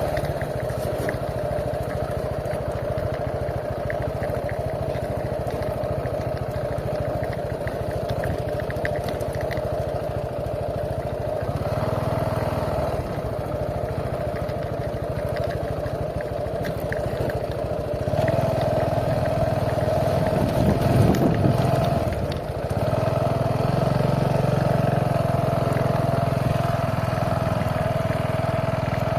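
An engine running steadily, growing louder about two-thirds of the way through, with a brief rise and fall in pitch shortly after.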